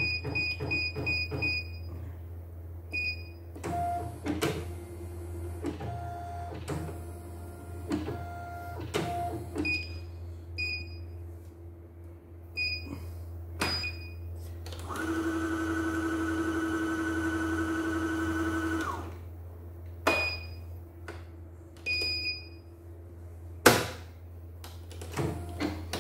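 CNY portable computerized embroidery machine: its control panel beeps, fast at first and then one beep at a time with clicks between, and about fifteen seconds in its embroidery-arm motor runs with a steady whine for about four seconds as the hoop moves to a new position.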